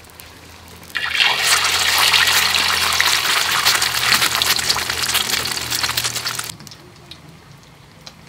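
An egg dropped into hot oil in a wok, sizzling loudly. The sizzle starts suddenly about a second in and cuts off sharply about five seconds later.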